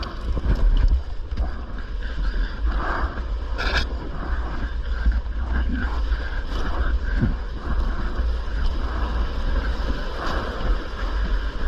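Steady wind rumble on the microphone over water splashing and lapping in rocky shallows.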